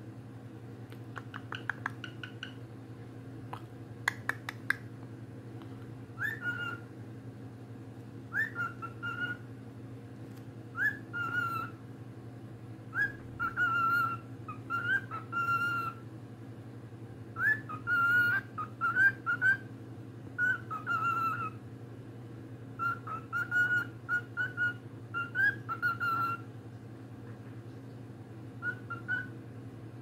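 Cockatiel whistling in short repeated phrases. Each phrase is a quick upward flick that settles into a short held note, coming every second or two over a steady low hum. A few sharp clicks come in the first seconds.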